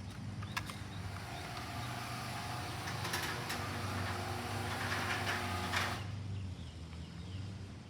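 Electric opener driving a two-car garage door along its track: a steady motor hum and whir that cuts off suddenly about six seconds in as the door stops.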